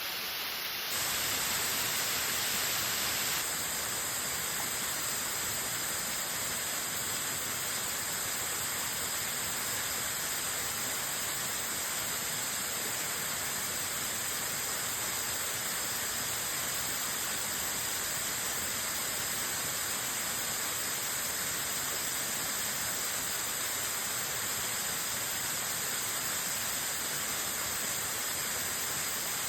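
Waterfall: a strong, continuous rush of falling water. It steps up slightly in level about a second in, then runs on steadily.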